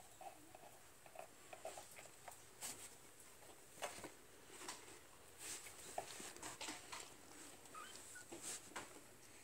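Faint, scattered light taps and scuffles of kittens and a puppy playing on a vinyl floor, with a couple of faint short squeaks near the end.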